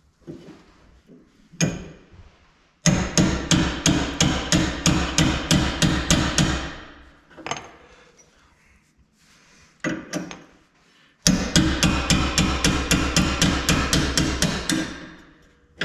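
Hammer rapidly striking metal to drive a bolt out of a travel trailer's leaf-spring suspension. There are two runs of quick blows, about four or five a second, each lasting about four seconds, with a single knock before each run.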